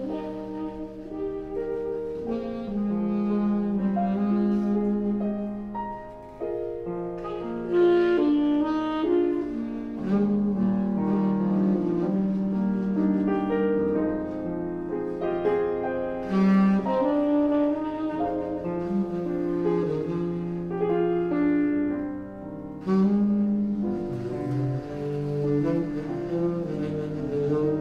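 Saxophone playing a slow melody of held notes over piano accompaniment.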